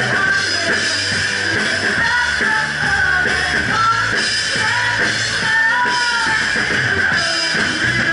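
Live rock band playing: a woman singing over distorted electric guitar and a Ludwig Vistalite drum kit.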